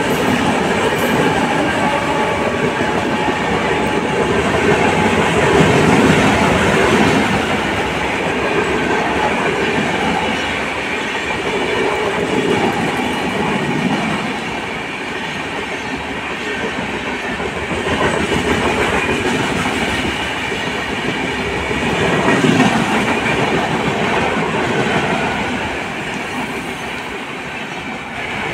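Coaches of the Himgiri Express passenger train running past close by: a continuous rumble and clatter of wheels on the rails that swells and eases every few seconds, dropping a little near the end as the last coaches go by.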